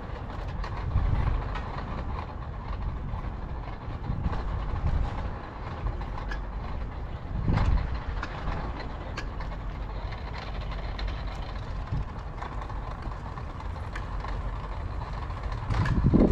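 A Tomos Silver Bullet moped's small two-stroke engine running while riding, with wind rumbling on the microphone and swelling now and then.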